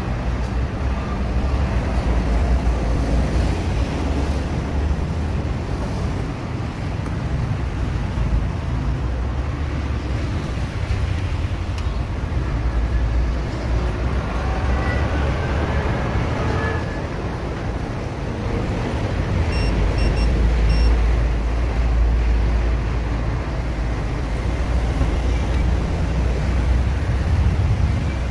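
Steady low rumble of background noise, swelling about two-thirds of the way in.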